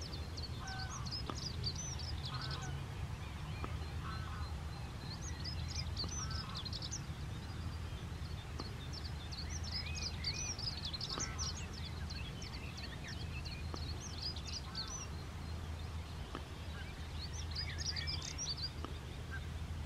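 Wild birds singing: bursts of quick, high twittering phrases every few seconds, with short lower calls between them, over a steady low rumble.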